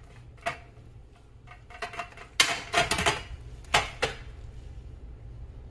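Metal spaghetti server clinking and scraping against a stainless steel colander as cooked spaghetti is lifted out, in scattered knocks that bunch into a clatter about halfway through and again a second later.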